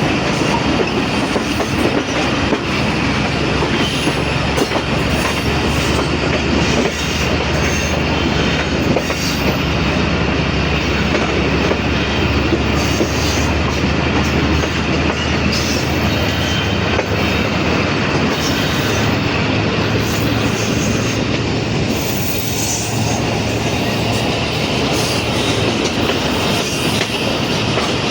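Pakistan Railways passenger train running along the track: a steady rumble of wheels on rails with a clickety-clack.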